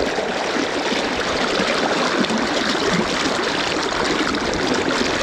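Steady rush of the Yoshino River's current flowing past.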